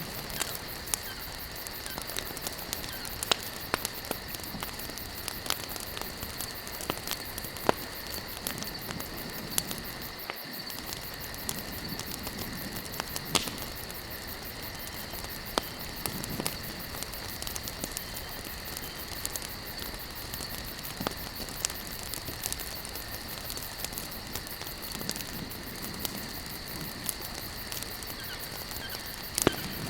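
Wood campfire burning: frequent irregular crackles and sharp pops over a steady hiss, with a few louder pops scattered through.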